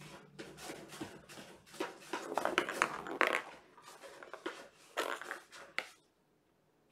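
Kittens playing, making quick bursts of scratching and rustling, loudest around two to three seconds in, stopping shortly before the end.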